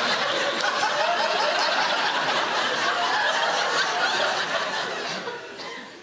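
Studio audience laughing, the laughter fading away about five seconds in.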